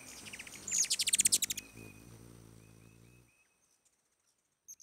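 Bird chirping sound effect: a quick high trill of about a second, over a low steady hum, cutting off abruptly about three seconds in.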